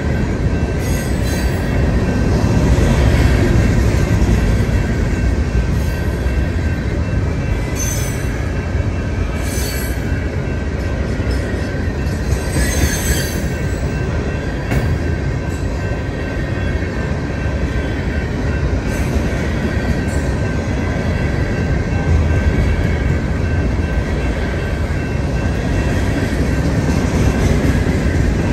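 A long freight train of covered hopper cars rolling past: a steady, loud rumble of wheels on rail, with brief high wheel squeals a few times.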